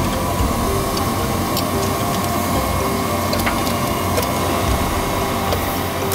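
Farm machinery running steadily: a constant low rumble with a whine and scattered light clicks and ticks.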